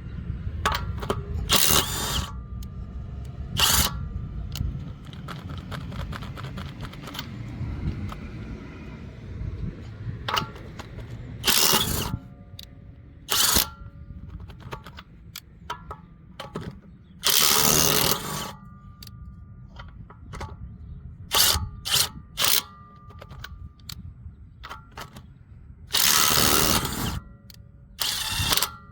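Ridgid Mini Torque 1/2-inch cordless impact wrench (R862312) running on lug nuts in repeated short bursts of hammering, about nine in all, the longest lasting about a second, with quieter spells between them.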